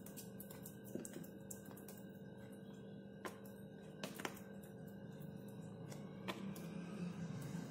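A steel spoon spreading soft barfi mixture in a plastic box, with a few light clicks of spoon on plastic. Faint steady background music runs underneath.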